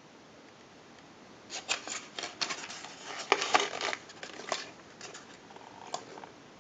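Screwdriver working the terminal screws and spade connectors on a telephone's network block, a run of small metal clicks and scrapes starting about a second and a half in, busiest in the middle, as the connections are tightened.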